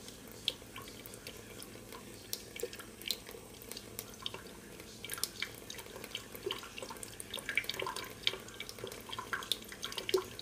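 A thin stream of water from a kitchen faucet trickling into a stainless-steel sink, with irregular drips and small splashes that come thicker from about halfway through.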